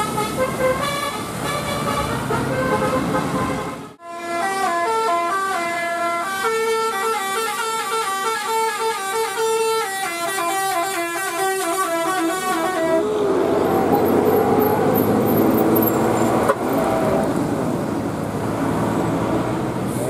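Bus telolet horn (Basuri multi-tone air horn) playing quick stepping melodies of several notes, broken by a cut about four seconds in. A second, busier tune follows. About two-thirds of the way through the horn stops, and a bus engine and passing traffic rumble on.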